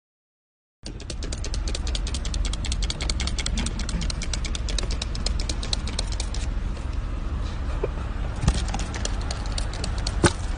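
Toy water gun squirting: rapid, even clicking, about ten a second, over a low rumble. It starts about a second in, pauses about six and a half seconds in, and resumes about two seconds later.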